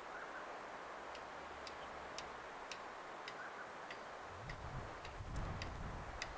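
Sharp, short ticks repeating about twice a second over a steady hiss, with a low rumble coming in about four seconds in.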